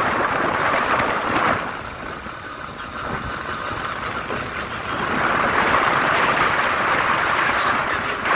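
Wind rushing over the microphone, with motorbike road noise, while riding along a road. It eases for a few seconds and rises again about five seconds in.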